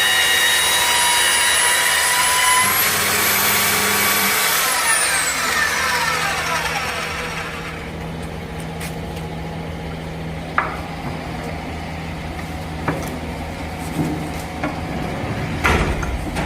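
Electric motor of an HDPE pipe welding machine running with a high whine, rising a little in pitch, then winding down after switch-off over about two seconds. A low steady hum follows, with a few sharp clicks and a louder knock near the end.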